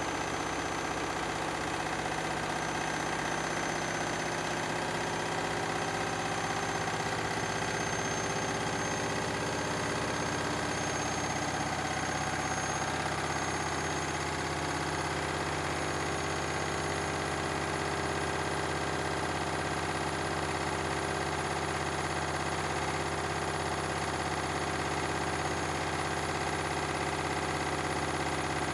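Beko and Candy washing machines running side by side on their spin cycles: a steady motor and drum hum with thin high whines, some rising slightly in pitch during the first half.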